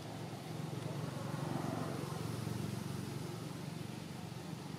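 A steady low engine hum, swelling louder from about a second in and easing off again after about three seconds, like a motor vehicle passing at a distance.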